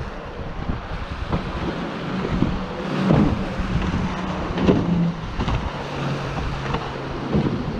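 RNLI inshore lifeboat speeding past, its outboard engines a steady hum whose note drops lower about two-thirds of the way through. Wind buffets the microphone and small waves break on shingle.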